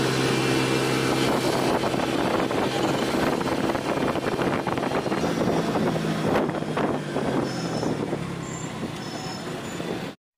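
Auto-rickshaw engine running steadily while under way, heard from inside the open passenger cabin along with road and wind noise. The sound cuts off suddenly near the end.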